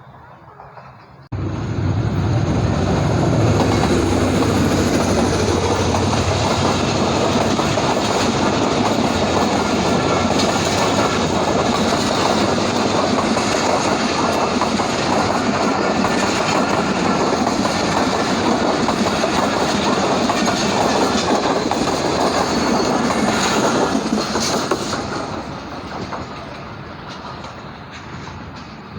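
Train coaches passing close at speed: a steady loud rush with wheels clattering over the rail joints. It starts suddenly about a second in and fades away over the last few seconds.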